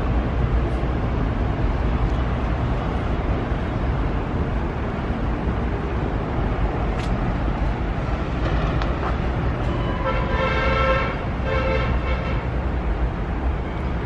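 Wind on the microphone: a steady, low rumble with a hiss above it. About ten seconds in, a short pitched sound comes in a few brief pieces over it.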